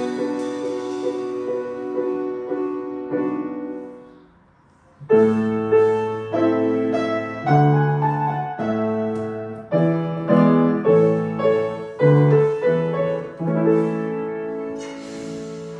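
Grand piano playing: the last notes of a piece ring out and fade about four seconds in, and after a brief pause the piano starts a new piece with a run of chords.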